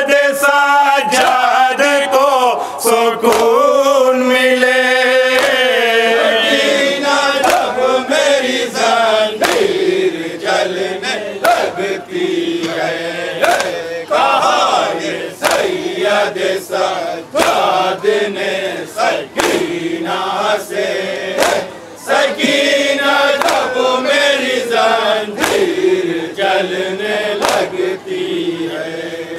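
A group of men chanting a Shia noha, a Muharram lament, in unison. Sharp open-hand slaps on the chest (matam) keep a beat about once a second.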